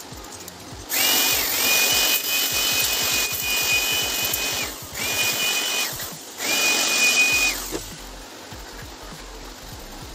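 Handheld corded electric air blower switched on three times: a high motor whine over the rush of air, rising briefly as the motor spins up. The first run lasts about four seconds, then come two short bursts of about a second each.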